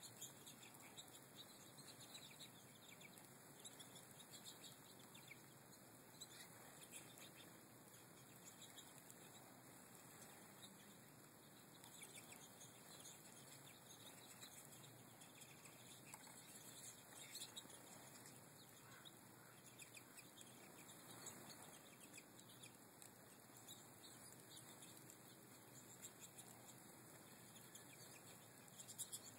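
Faint twittering of a flock of American goldfinches, many short high chirps scattered throughout, with soft wing flutters as birds come and go.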